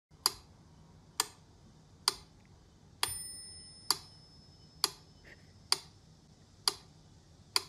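Mechanical pendulum metronome ticking steadily, a little faster than once a second. About three seconds in, one beat carries the accent bell, which rings on and fades slowly.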